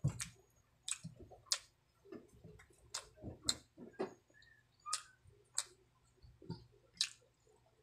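Close-miked eating sounds of chicken and rice being chewed: sharp, wet mouth clicks and smacks, irregularly spaced about half a second to a second apart, with softer low chewing thuds between.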